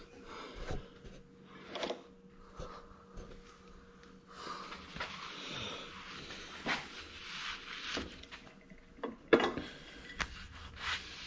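Quiet hand work on a steel gearbox shaft: a shop towel rubbing over the shaft for a few seconds in the middle, with soft clicks of parts being handled. A few sharp metal knocks come near the end, over a faint steady hum.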